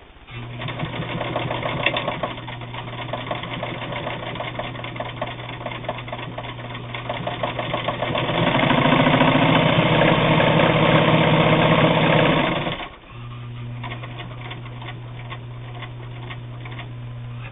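Bel Air Precision De Luxe sewing machine with a 1.5 amp motor stitching through eight layers of heavy denim, a rapid steady run of stitches. About eight seconds in it speeds up and gets louder, then stops about four seconds later, leaving a low steady hum.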